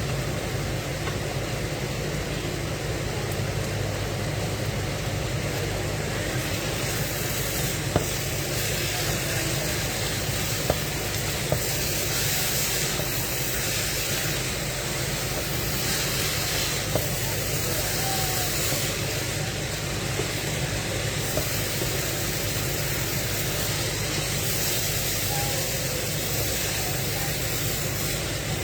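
Steady kitchen cooking noise: an even hiss over a low hum, the hiss swelling and easing at intervals, with a few light clicks.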